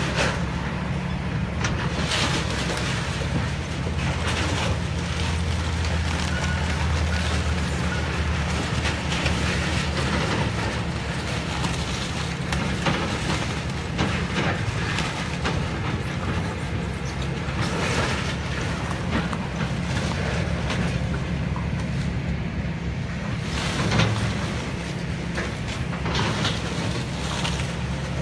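Demolition excavator's diesel engine running steadily, with crashes and clatter of falling building debris now and then as it tears the structure down.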